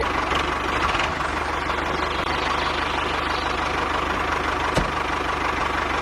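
A small engine or motor running steadily with a fast, even rattle. There is one short click near the end.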